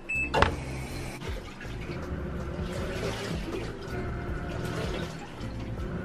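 BLACK+DECKER BPWM09W compact pulsator portable washer running with water churning in the tub, a steady low hum under a watery swish. A sharp knock comes about half a second in.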